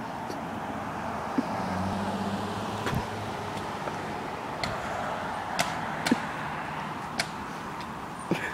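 A car passing on the road, its engine hum rising briefly about one and a half to three seconds in over a steady background of traffic noise, with a few scattered sharp clicks.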